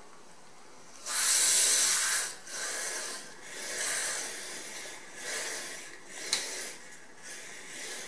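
Aerosol pipe-freeze spray hissing through a thin tube into a pipe-insulation cup around a 15 mm copper pipe: one long burst about a second in, then five shorter bursts. A little crack about six seconds in, which the user takes for the ice plug closing across the pipe.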